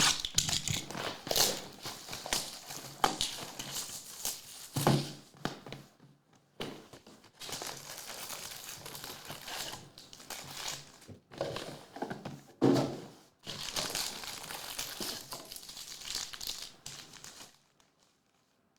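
Crinkling and tearing of trading-card pack wrappers being handled and torn open, in irregular bursts with brief pauses.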